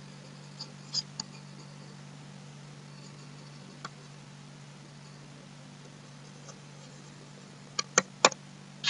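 Faint computer-mouse clicks over a steady low electrical hum: a couple of soft clicks about a second in, then several sharper clicks near the end.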